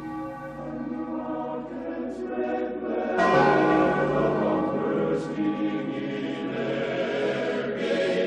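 Choral music with church bells ringing: sustained voices and bell tones, with a new, louder chord coming in about three seconds in.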